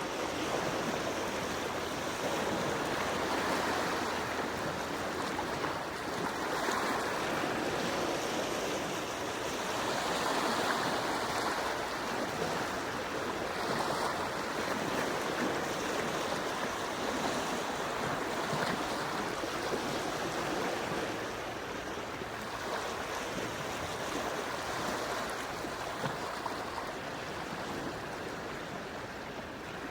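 Small, quiet sea waves washing in steadily, swelling softly every few seconds.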